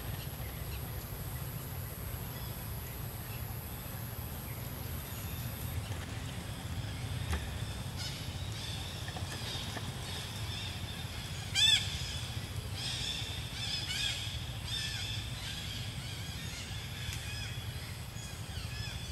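A few short, high-pitched animal calls, rising and falling, come in from about eight seconds in; the loudest is a quick sharp call a little past the middle. Underneath runs a steady low outdoor rumble, and a thin high steady whine stops about six seconds in.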